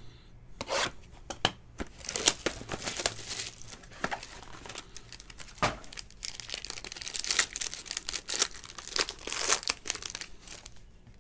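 Foil wrapper of a 2020 Topps Tier One baseball card pack being torn open and crumpled by hand: irregular crinkling and tearing.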